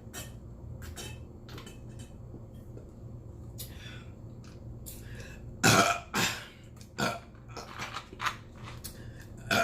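A loud burp a little more than halfway through, followed by a few shorter, weaker belches and mouth sounds. Before it there are only small clicks of mouth noise.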